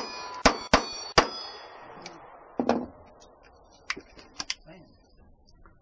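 Four rapid 9mm Glock pistol shots inside about a second, with the steel targets left ringing after them. A dull knock follows about two and a half seconds later, then a few light clicks.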